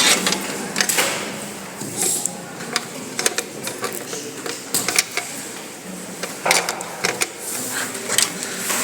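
Irregular clicks, taps and knocks of computer parts being handled and fitted back into a desktop system unit during reassembly.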